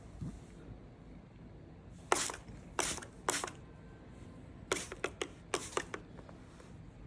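Handheld water spray bottle spritzing in short hissy puffs: about three spaced sprays, then about six in quicker succession.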